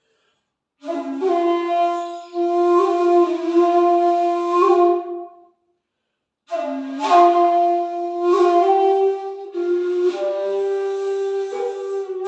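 A 2.8 jinashi shakuhachi plays slow, breathy sustained notes in two long phrases, with a pause of about a second between them, the second phrase ending on a long held note.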